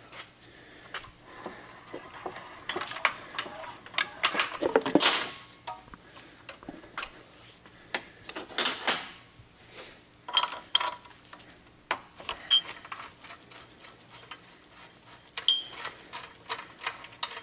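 Hand tools and metal parts being handled during bodywork: irregular clinks, knocks and rattles, with two longer scraping sounds about four and eight and a half seconds in.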